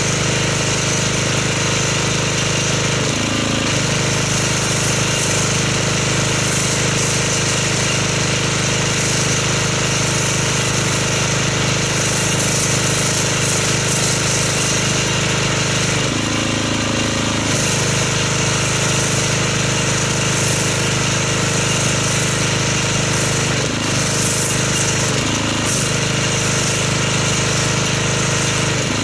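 Pressure washer running steadily while an MTM foam cannon on its lance sprays thick snow foam, the pump's drone under the hiss of the spray. The pump's note shifts briefly a few times.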